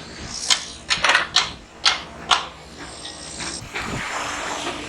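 A series of about six short, sharp clicks over two seconds, then about a second of steady rushing noise near the end.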